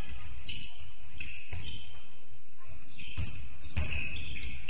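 Basketball bouncing on a hall floor during play, a handful of irregular thuds, with short high squeaks from players' shoes.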